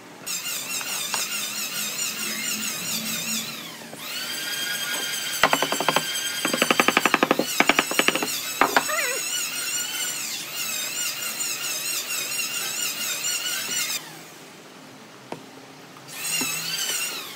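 A small electric power tool motor whining at a high pitch, running in three spells: it winds down near three and a half seconds, spins up again about four seconds in and stops near fourteen seconds, then runs briefly near the end. A quick run of sharp knocks comes about six to nine seconds in.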